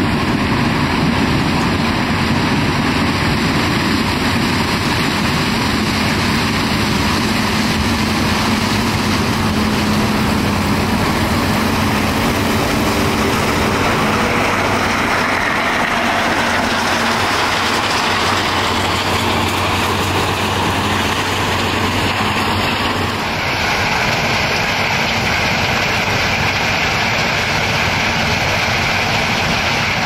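New Holland CX8080 combine harvester running steadily while harvesting corn, a loud machine drone with a low hum. About three-quarters of the way through, the sound shifts toward a higher, brighter hiss.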